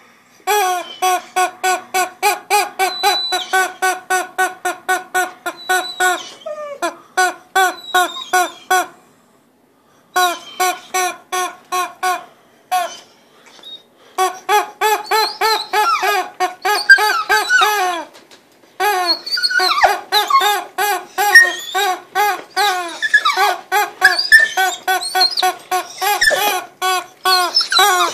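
Purple rubber squeaky-chicken dog toy squeaking over and over as a dog chews and squeezes it, about three or four squeaks a second, in runs broken by short pauses.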